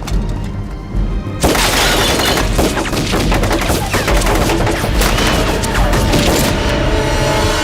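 Film soundtrack music, joined about a second and a half in by a sudden, dense stretch of rapid gunfire and bangs that cuts off abruptly at the end.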